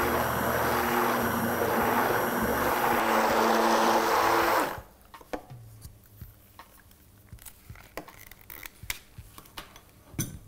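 Electric immersion blender running steadily in a jug of crepe batter, then switched off suddenly about four and a half seconds in. After it stops, a few light knocks and taps.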